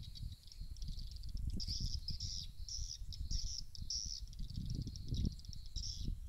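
Swiftlet calls, a high chirping twitter in short repeated bursts, played as a lure from a swiftlet house's speakers, with wind rumbling on the microphone.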